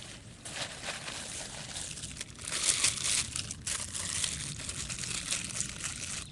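Wood campfire crackling: a dense run of fine snaps and pops, louder for a second or so about two and a half seconds in.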